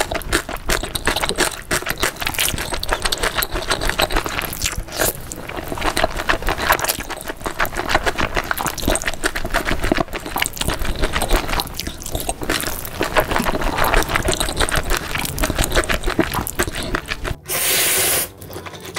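Close-miked eating sounds: wet chewing, crunching and squishing of food in quick, irregular clicks, with a short burst of hiss near the end.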